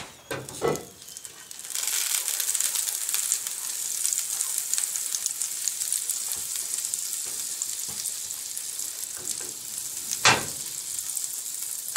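Butter sizzling in a hot skillet on a wood cook stove. The sizzle sets in about two seconds in, as the butter hits the pan, and then holds steady. There are a couple of soft knocks at the start and one sharp knock near the end.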